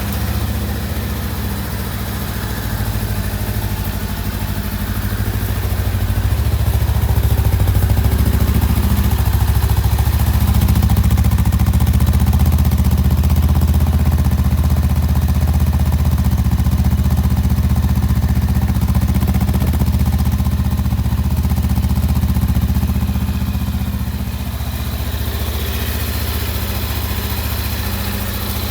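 Honda Rebel 500's parallel-twin engine idling steadily just after a cold start, its first run after sitting a week. The idle grows a little louder a few seconds in and settles back down near the end.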